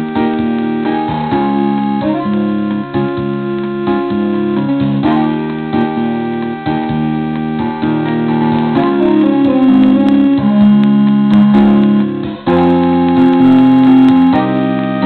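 Background music on an electric keyboard: sustained piano-like chords changing every second or two, dipping briefly near the end before coming back slightly louder.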